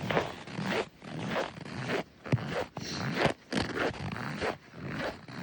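Repeated rasping scrapes, roughly two a second, each lasting about half a second.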